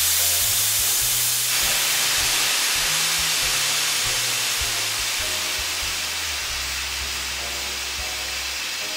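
Loud, steady hiss like escaping steam, easing off slowly, with a run of low notes that step in pitch every half second or so underneath: the sound effect given to a steam-powered computer as it 'speaks'.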